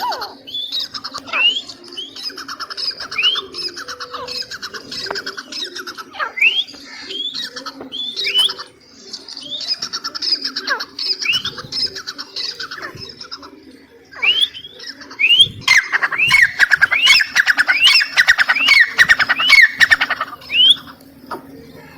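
Female francolin (teetar) calling: a long series of short, sharp notes, each falling in pitch, that crowds into a fast, loud run of calls about two-thirds of the way through.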